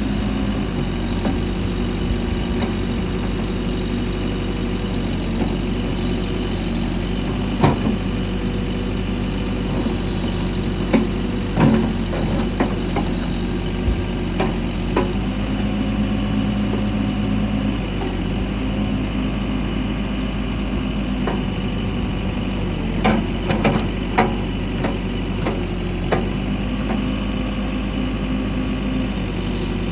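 New Holland B95 backhoe loader's diesel engine idling steadily, with a few sharp knocks about eight and twelve seconds in and a short cluster of them later on.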